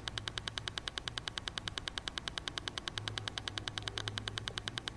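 Steady, metronome-like clicking pulse at about ten clicks a second, the rhythmic beat laid under a Silva Method guided meditation to lead the listener into the alpha level, with a faint low hum underneath.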